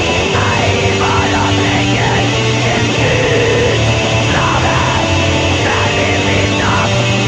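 Raw black metal: a dense wall of distorted guitars and drums at a steady, loud level, with a dull, lo-fi sound.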